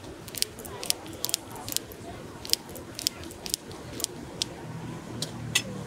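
Kitchen scissors snipping sticky boiled mochi in a paper box: a dozen or so sharp, irregular clicks as the blades close.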